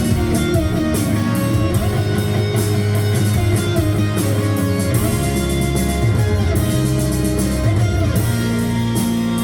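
Pop-rock music from a vinyl record: an instrumental passage with guitar over a steady bass, without vocals.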